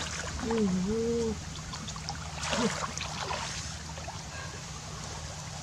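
Muddy paddy water sloshing and splashing as hands and a bamboo basket fish trap work in the shallow water, with a noise burst around two and a half seconds in. A short hummed vocal sound, dipping then rising in pitch, comes about half a second in.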